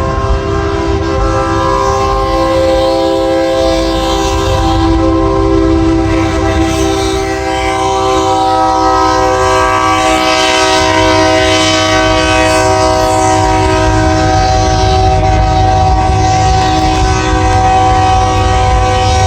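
Train-style air horns on a 4th-gen Cummins pickup blowing one long, loud chord of several notes, held without a break, over a low steady rumble.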